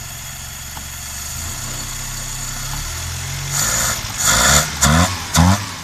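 Toyota 2K four-cylinder pushrod engine on its self-built twin-carburettor setup, idling steadily, then from about three and a half seconds in blipped several times in quick succession, each rev rising sharply and dropping back. The engine is running with a blown head gasket.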